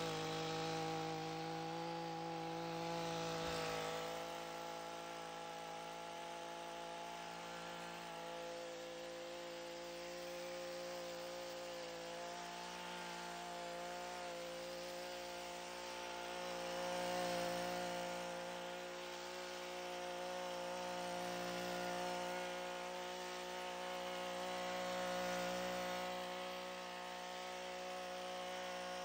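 Gas-powered pole hedge trimmer running at a steady high speed while its blades cut through hedge tops. The pitch stays steady, and the level swells gently a few times as the cutter bar works through the foliage.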